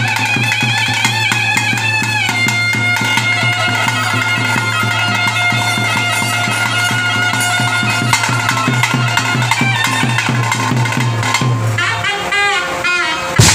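Traditional Kola ritual music: a reed pipe plays a wavering melody over a steady low drone and a regular drumbeat. About twelve seconds in, the drone drops out and the pipe plays sliding, warbling phrases.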